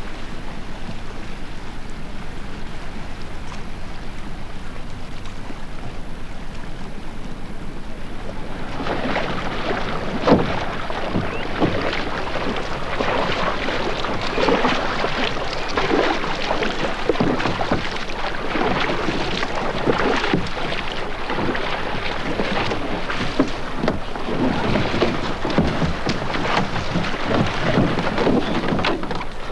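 Low hum and tape hiss. About nine seconds in, outdoor sound begins: kayaks and paddles in choppy water, with irregular splashing and knocks and wind on the microphone.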